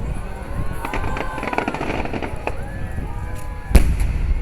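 Aerial firework shells bursting in a fireworks finale: a low continuous rumble of bursts, a patch of crackling about a second in, and one sharp loud boom near the end.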